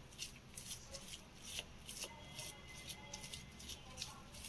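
Metal spoon stirring and scraping a moist grated-coconut mixture against a ceramic plate: faint, quick scrapes, about three or four a second.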